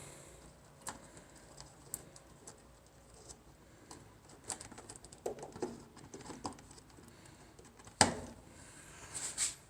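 Scattered small clicks and taps of hands handling parts, with one sharp knock about eight seconds in and a brief scraping rustle near the end.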